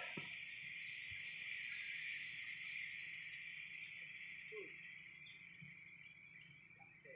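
Insects droning in a steady high-pitched chorus that weakens slightly toward the end.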